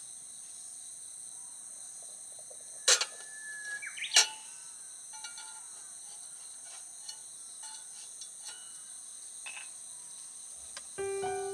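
Insects chirping in a steady, high-pitched chorus, with two sharp cracks about three and four seconds in and a few faint ticks.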